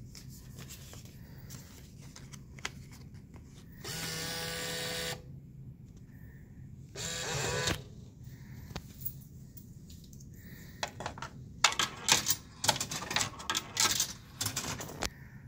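Dixie Narco BevMax DN5800 vending machine's bill validator motor running for about a second as it takes in a dollar bill, then running again briefly a couple of seconds later. Near the end comes a quick series of metallic clinks and rattles as coins drop through the coin mechanism.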